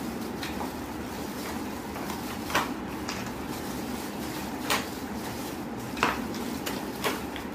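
Folding baby walker being lifted and opened out by hand: its plastic tray and base and wire frame give four sharp clicks and knocks a second or two apart, over a steady background hiss.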